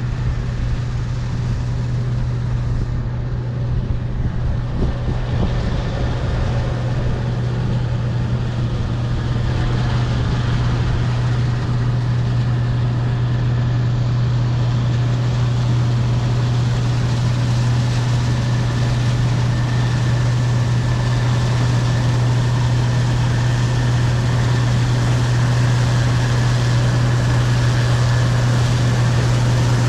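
Case IH 2388 Axial-Flow combine's diesel engine and threshing rotor running steadily under load while harvesting soybeans, a constant low drone with a faint high whine, growing slightly louder from about a third of the way in.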